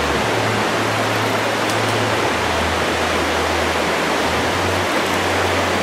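Steady rushing of water in a slot canyon, an even hiss-like roar with no breaks, over a faint low hum.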